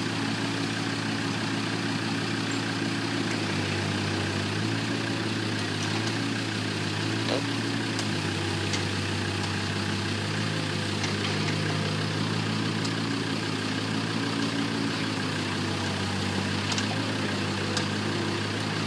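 A vehicle engine running steadily at low revs, its pitch stepping up and down slightly a few times, with a few faint ticks over it.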